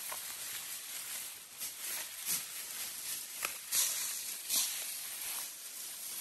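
Tall grass and reeds swishing and crackling as people push through on foot, a few sharper rustles standing out over a steady high hiss.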